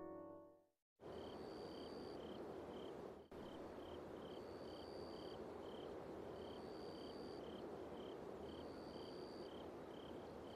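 Faint night ambience of insects chirping over a soft hiss: a quick high pulse about three times a second, and a longer, higher trill every two seconds or so. It starts about a second in, after a moment of silence.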